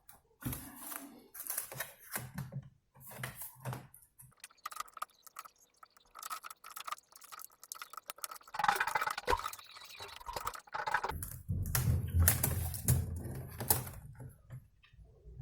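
Irregular small clicks, taps and rattles of a laptop keyboard and plastic case parts being handled during reassembly. The noise grows busier and louder in the second half.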